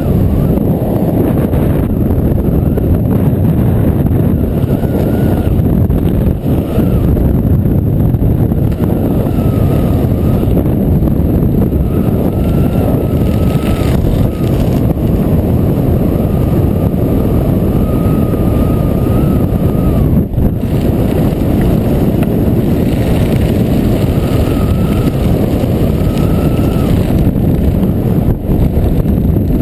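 Wind blasting over a skydiver's helmet-camera microphone during the jump, a loud, steady roar with only brief dips.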